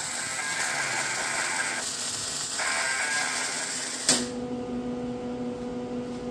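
Wire-feed welding arc crackling steadily while tacking steel hinges onto a smoker door, cutting off suddenly about four seconds in. A steady low hum carries on afterwards.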